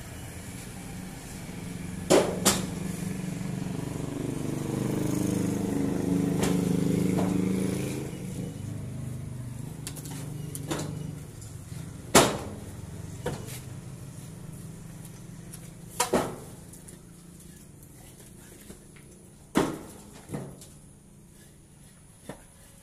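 Pressed stone building blocks clacking against each other as they are lifted and set down on a hand-built stack, one sharp knock every few seconds. Under them runs a motor vehicle engine hum that swells in the middle and then fades.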